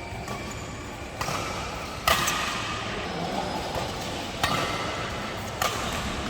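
Badminton racket hitting a shuttlecock in a rally: four sharp hits a second or two apart, with a short echo after each.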